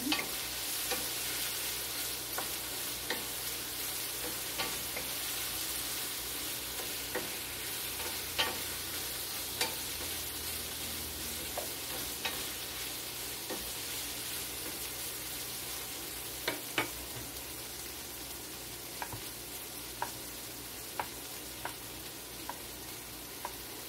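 Potatoes, onions and chicken frying with a steady sizzle in a large skillet. A wooden spoon scrapes and clicks against the pan now and then as the food is stirred.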